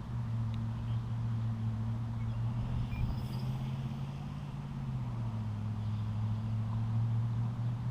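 Electric RC plane in flight, its propeller and motor giving a steady low drone that drops in pitch through the middle and rises again as the throttle or distance changes.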